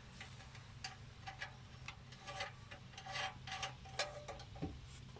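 Irregular light metallic clicks and clinks from hand work on exhaust clamp hardware, a nut and tools knocking against metal, with a closer run of clicks about three to four seconds in.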